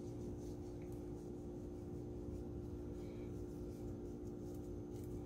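Faint scratchy rustle of a dry seasoning blend being sprinkled onto raw kingfish steaks, over a steady low electrical hum.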